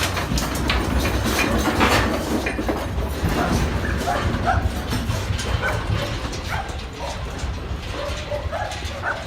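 A dog barking and yipping in short repeated calls, thickest in the second half, over a steady low rumble.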